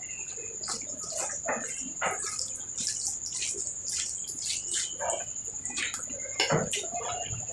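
Close-up eating sounds: irregular wet smacks, clicks and chewing of rice and curry, over a steady thin high-pitched whine.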